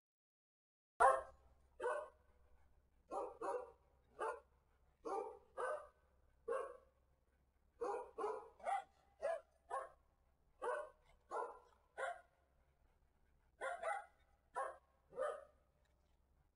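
Corgis barking: about twenty short barks, single or in quick pairs, starting about a second in. The first bark is the loudest.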